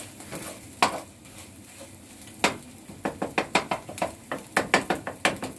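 Wooden spatula stirring and scraping scrambled eggs in a frying pan, over a faint sizzle of frying. A few single knocks come first, then quick repeated taps and scrapes, about four or five a second, from about three seconds in.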